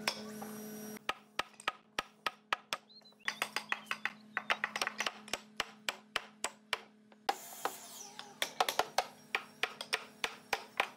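Rapid runs of sharp knocks on wood, several a second and uneven in spacing, from a tool striking hardwood, over a steady low hum.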